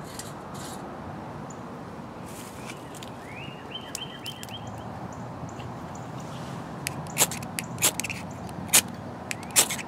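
A ferrocerium rod scraped hard with a steel striker, about five quick sharp strokes in the last three seconds, throwing sparks onto tinder to light a small wood stove. Before that only faint handling sounds over a steady background.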